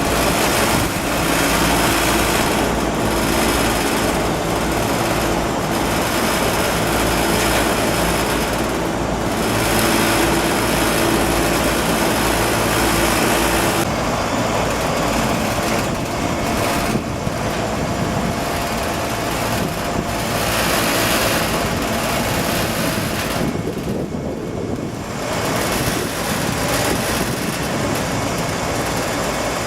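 HVAC equipment running: steady loud fan and motor noise with a low, even hum. The hiss dips briefly twice.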